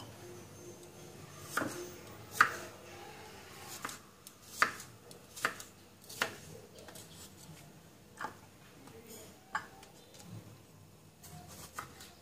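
Kitchen knife slicing tomatoes into wedges on a thick round wooden chopping board: about nine sharp knocks as the blade strikes the wood, irregularly spaced a second or so apart, the loudest about two and a half seconds in.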